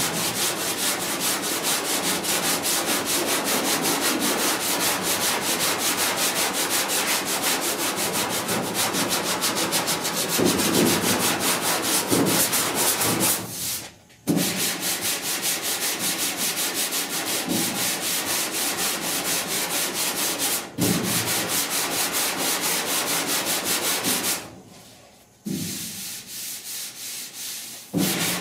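Hand block sanding of body filler on a truck cab's rear panel with 80-grit paper on a sanding block, taking out 36-grit scratches: steady, rapid back-and-forth scraping strokes. It stops briefly about halfway through and again for about a second near the end.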